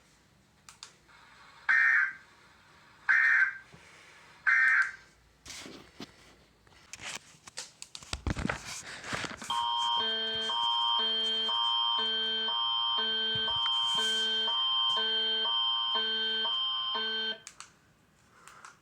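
Three short bursts of EAS end-of-message data tones, about a second and a half apart. Then a stretch of crackles and a burst of static. Then the Canadian Alerting Attention Signal, alternating tones over a steady high tone, which starts about halfway through and lasts about eight seconds.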